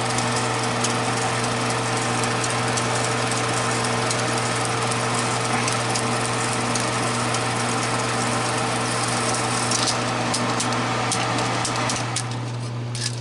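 Vintage Kodak Pageant MK-5 16mm sound projector running: a steady mechanical whirr with a constant low hum, and a few sharp clicks near the end.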